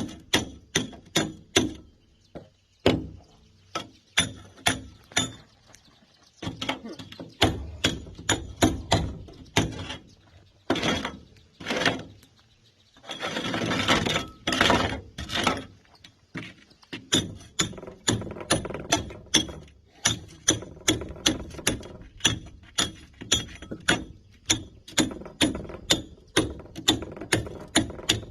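Hammer striking a steel chisel to break concrete: sharp, ringing blows about two to three a second with brief pauses. About halfway through there are a couple of seconds of rough scraping noise.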